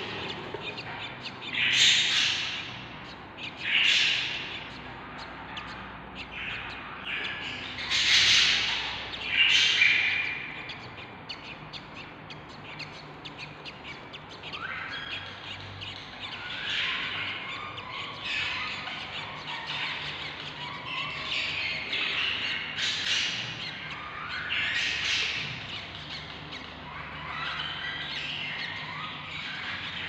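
Budgerigar hen and her days-old chicks calling: loud harsh squawks about two, four, eight and ten seconds in, then a long run of quieter, quick rising chirps while the hen bends over to feed the chicks.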